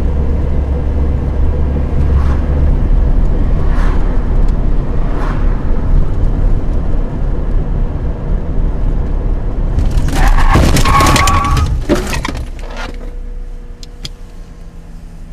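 Steady low rumble of a moving vehicle on the road. About ten seconds in comes a loud crash with breaking and a brief squeal, lasting about two seconds, after which the rumble is much quieter.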